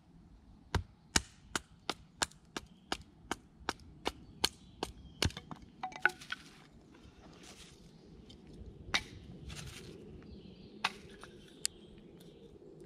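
A wooden mallet beating the spine of a knife to split a hazel stick lengthwise (batoning). The knocks come in a quick, even run of about a dozen, roughly two and a half a second, over the first six seconds. A few single knocks follow near the end.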